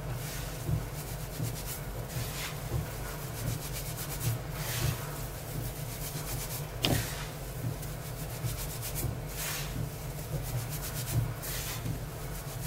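Hands rubbing coarse semolina moistened with melted butter and margarine between the palms in a large bowl: a continuous dry rustling of irregular strokes as the fat is worked into the grain. One sharp click comes about seven seconds in, over a steady low hum.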